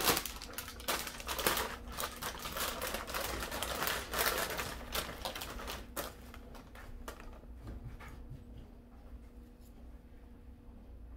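Thin plastic bag of vanilla wafers crinkling and rustling as a hand rummages in it and pulls cookies out: a dense, rapid crackle for about six seconds. After that come a few fainter ticks as the wafers are handled and set down.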